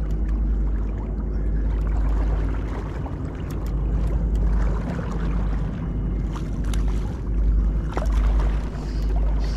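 Fast river current rushing, with wind buffeting the microphone in a fluctuating low rumble. A few short clicks come between about six and eight seconds in.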